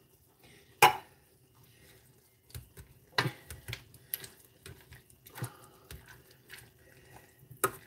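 A metal utensil clicking, tapping and scraping irregularly in a stainless steel saucepan as boiled potatoes are mashed and stirred with canned milk. There is a single sharp knock about a second in and another near the end.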